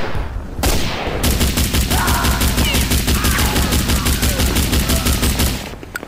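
Gunfire sound effect. It opens with a loud blast and goes into a sustained burst of rapid automatic fire, about ten shots a second, which dies away near the end.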